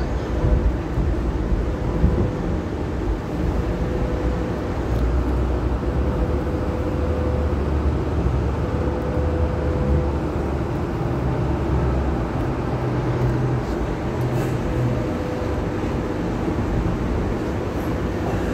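Hong Kong Light Rail Phase I train running: a steady low rumble of wheels on rails, with a faint motor hum that comes and goes.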